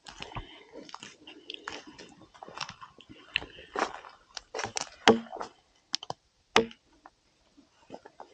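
Resinous pine kindling being split and snapped into splinters by hand, an irregular run of crunches and cracks with two sharper snaps about five and six and a half seconds in.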